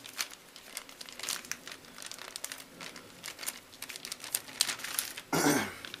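Plastic bag crinkling as it is handled and sealed, a run of small crackles with a louder rustle about five seconds in.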